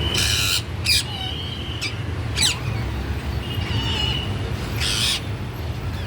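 Parrot squawking, about four short harsh calls, with short level whistled notes between them.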